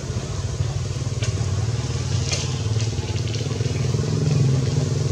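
A motor engine running steadily, its pitch rising a little near the end, with a few faint clicks over it.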